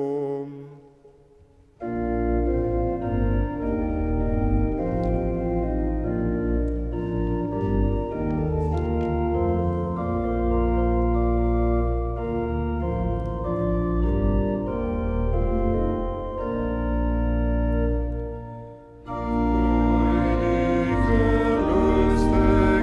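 Church organ playing the introduction to a hymn in sustained chords, entering about two seconds in after a short lull. Near the end the organ pauses briefly, then a few voices begin singing the hymn with it.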